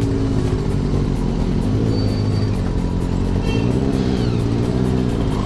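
Motorcycle engine running steadily at a fairly even speed.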